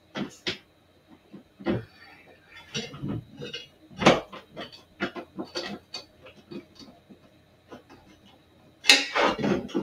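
Hand screwdriver turning a screw with a washer through a TV stand bracket into the TV's back: irregular small metallic clicks and scrapes. There are louder clinks about four seconds in and a brief cluster near the end.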